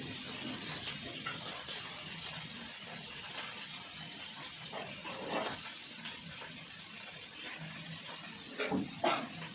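Steady kitchen hiss, with a few short knocks of cookware or utensils about five seconds in and twice near the end.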